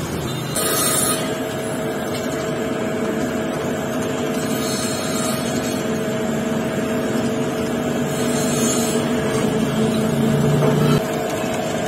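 Drill press motor starts about half a second in and runs with a steady hum while a small twist drill bores into a motorcycle clutch cover; a lower sound under the hum drops away near the end.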